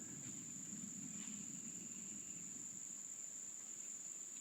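Steady, high-pitched chorus of late-summer insects, with a faint low rumble beneath it.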